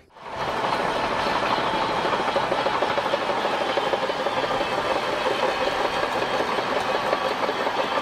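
Shantui crawler bulldozer working: its diesel engine running steadily under the clatter of its steel tracks. The sound fades in just after the start.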